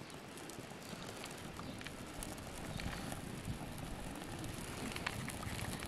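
Dry twigs and kindling catching fire and crackling, with many small scattered pops, growing a little louder in the second half.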